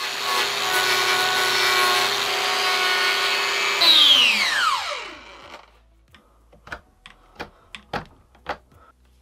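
Metabo angle grinder running and grinding down the horn of a deer's hoof, then switched off about four seconds in, its whine falling steeply in pitch as the disc spins down. A few faint knocks follow.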